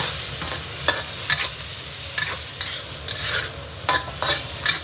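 Metal spatula scraping and clattering in a hot wok over a steady sizzle. Near the end, liquid poured from a ladle into the hot wok hisses and bubbles.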